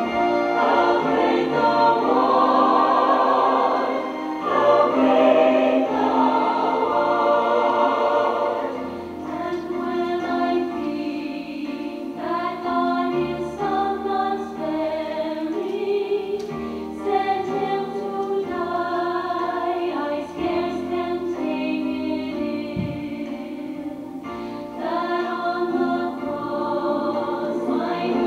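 A choir singing a sacred song, with long held notes.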